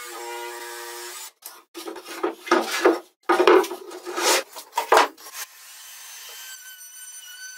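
DeWalt cordless jigsaw cutting plywood, a steady buzz that stops about a second in. Then loud irregular scraping and knocking of plywood pieces as the cut-out piece is pulled free of the offcut. A faint steady high whine sets in near the end.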